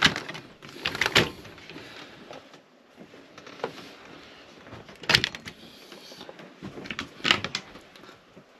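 Clicks and knocks of a domestic fridge-freezer door in a motorhome being pulled open, with a sharp knock about five seconds in as a door shuts, then more clicks near the end as a wardrobe door catch is opened.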